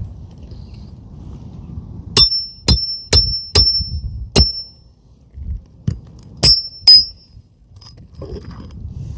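Hammer striking a roof snake to drive a roofing nail through a shingle into the roof decking: sharp metal-on-metal strikes, each with a short ringing ping. A run of five strikes starts about two seconds in, then a lighter tap and two more strikes follow near the end.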